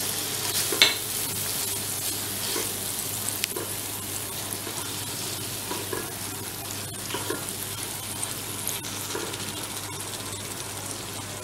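Chicken pieces sizzling in oil and soy sauce in a non-stick wok, stirred with a silicone spatula: a steady sizzle with scattered light scrapes and ticks of the spatula against the pan.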